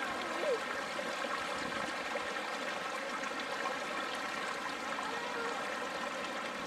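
Mountain stream flowing, a steady, even rush of water.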